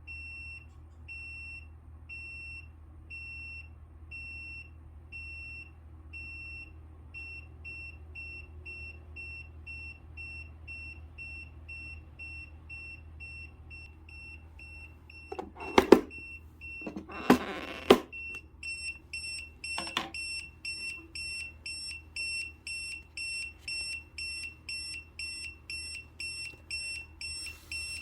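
Camping carbon monoxide alarm sounding during a function test: a high-pitched beep repeated in a steady rhythm, quickening after several seconds and growing louder past the middle. A few loud knocks and a rustle come about halfway through.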